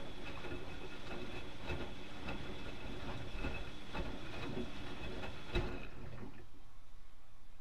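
Bauknecht WAK 6950 front-loading washing machine turning its drum during the wash, with a motor whine and laundry knocking and clicking inside. The drum stops about six seconds in, leaving a low hum.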